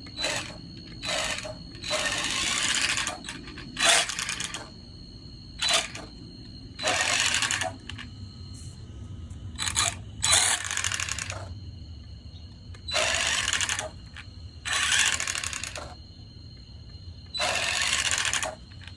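Arrma Senton RC truck's electric motor and rear gear train spun up in about eleven short throttle bursts, each with a harsh grinding noise from the rear, with the drive shaft disconnected. A faint steady high whine carries on between the bursts.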